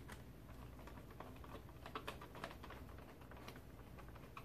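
Hand screwdriver turning a machine screw through a tubular steel side rail into a plastic housing: a faint run of small irregular clicks and creaks, busiest and loudest about two seconds in.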